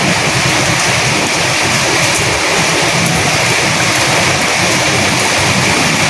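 Steady rain with wind: an even, unbroken hiss with no distinct drops, gusts or pauses.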